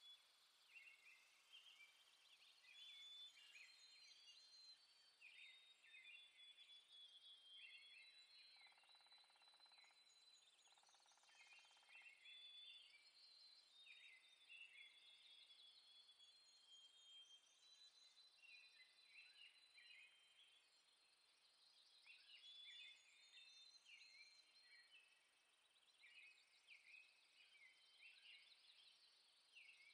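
Faint outdoor birdsong: several small birds chirping and singing short, repeated phrases throughout, with a faint hum for a few seconds in the middle.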